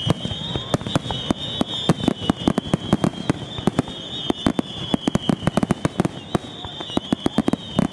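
Star mine fireworks barrage: shells bursting in quick succession, several sharp bangs a second, under a steady, wavering high-pitched shrill.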